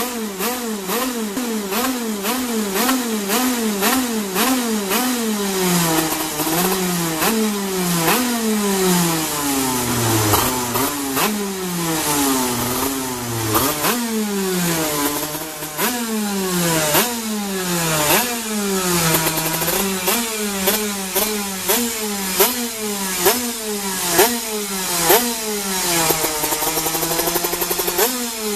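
Two-stroke racing kart engine free-revving on its stand, the throttle blipped over and over so the note sweeps up and falls back. In the middle the revs are held longer and allowed to drop slowly, and near the end short sharp blips return.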